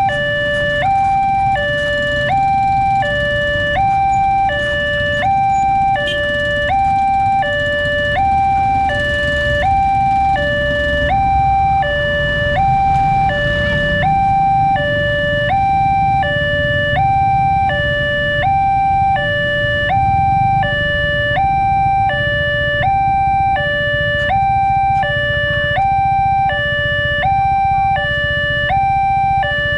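Railway level-crossing alarm sounding its electronic two-tone warning, alternating steadily between a higher and a lower note about once a second: the signal that a train is approaching and the barrier is coming down. A low rumble of motorcycle and car engines runs underneath.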